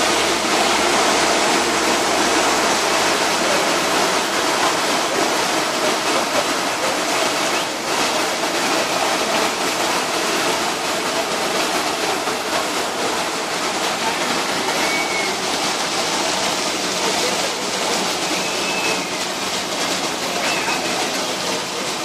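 Steady rushing of water and wind past a boat under way: an even hiss without low rumble.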